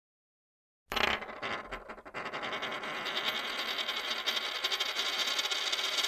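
Logo sting sound effect: after silence it starts suddenly about a second in, dips briefly, then holds as a steady, bright shimmering hiss.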